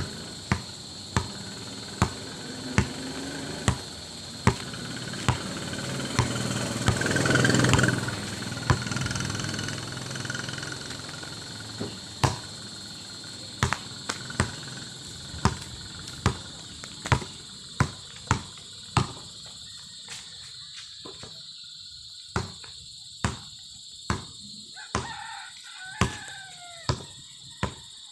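Basketball bouncing on an asphalt road as it is dribbled, a sharp smack with each bounce, coming faster in the last few seconds. A vehicle passes about seven seconds in, crickets chirp steadily, and a rooster crows near the end.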